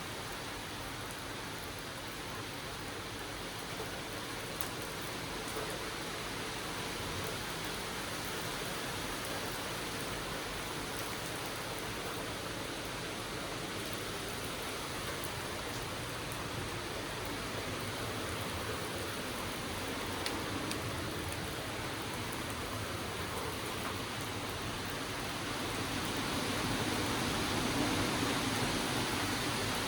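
Thunderstorm rain and wind making a steady, even hiss that swells a little near the end.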